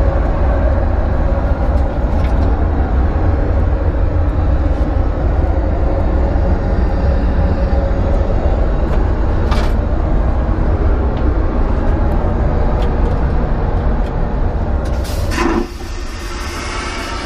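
Steady low roar of a jet airliner's cabin noise in flight, heard from inside the cabin. About fifteen seconds in there is a brief knock and the roar drops to a quieter level.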